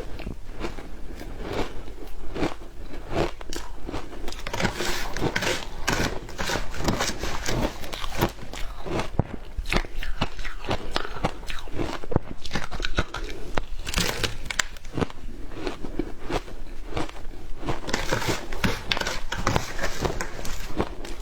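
Frozen matcha ice being bitten and chewed: a dense, irregular run of crisp crunches and cracks that goes on without a break.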